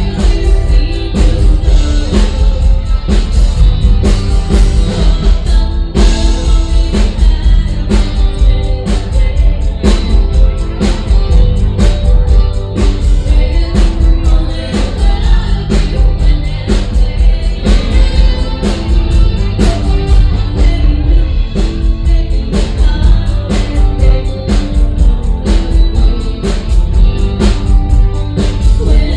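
A woman singing a song over a band, with a steady drum beat and heavy bass.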